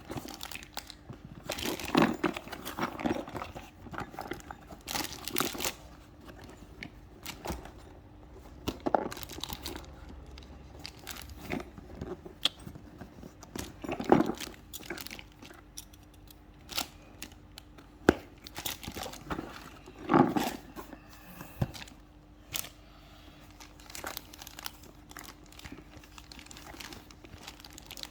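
A parcel's packaging being handled and torn open by hand: irregular crinkling rustles and tearing, with a few louder rips.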